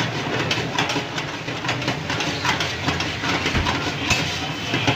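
Metal ladle stirring a pan of food on a high flame, knocking and scraping against the pan several times a second over a steady hiss, as the dish is cooked down until the ghee separates.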